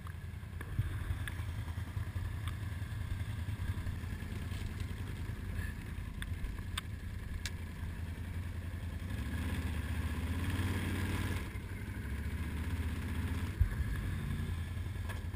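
ATV engine running at low speed while the quad rolls across a wooden plank bridge deck, with scattered clicks and knocks from the planks. The engine note rises for a couple of seconds past the middle, and a single sharp knock, the loudest sound, comes near the end.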